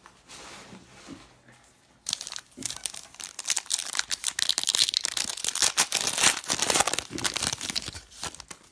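Crinkling and tearing of a trading card pack's wrapper as it is ripped open and handled. It starts about two seconds in and goes on as a dense crackle until near the end.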